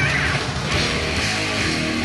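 Background rock music with strummed electric guitar.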